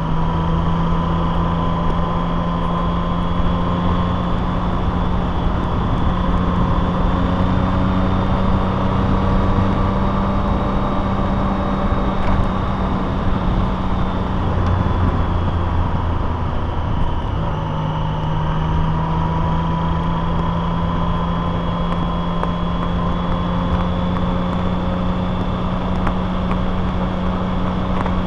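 Vehicle engine running with road noise while driving. The engine note climbs slowly, falls away about halfway through, then climbs steadily again.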